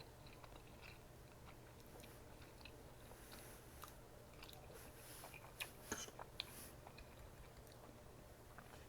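Faint chewing with small mouth clicks from someone eating close to the microphone, a few louder clicks coming together about six seconds in.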